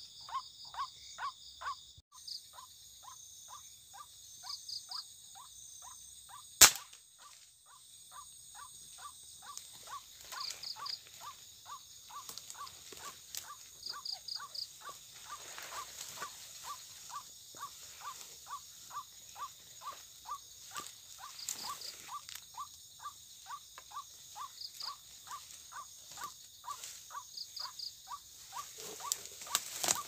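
Night-time chorus of calling animals: a short note repeating two to three times a second, with insects chirping in quick threes and a steady high insect hum. A single sharp crack about seven seconds in is the loudest sound.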